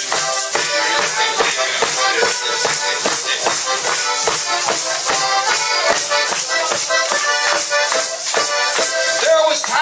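Live band music with no singing: a melody of held notes over a steady percussion beat, an instrumental break in a pirate-themed sea-shanty-style song.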